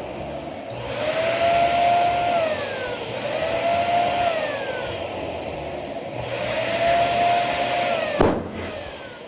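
Electric balloon pump running in about three short bursts, its motor whine rising as it starts and dropping as it stops, with rushing air, as a balloon is inflated. A single sharp pop about eight seconds in, a balloon bursting.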